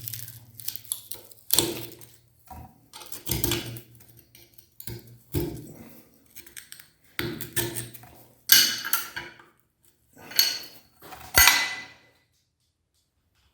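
Hard candy clattering against metal and glass in short bursts every second or two, stopping about a second and a half before the end.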